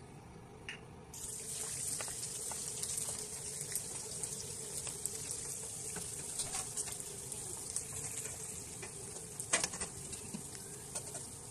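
Sliced onions sizzling in hot oil in a frying pan: the sizzle starts suddenly about a second in and carries on steadily. Scattered knocks and scrapes come from a wooden spatula stirring them against the pan.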